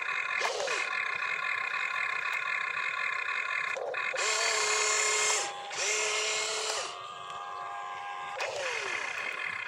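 Radio-controlled excavator's electric motors and gears whining steadily as it digs and swings its boom, with louder whirring about four seconds in and again shortly after, and a few short falling-pitch sweeps.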